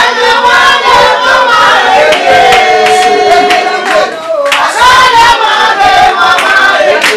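Several voices singing together in a lively song, with handclaps.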